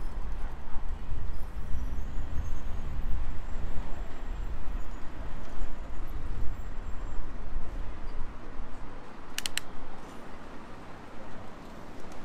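Wind rumble and rolling noise from a bicycle ride through city traffic, easing as the bike slows to a stop at a crossing near the end. Two sharp clicks about nine and a half seconds in.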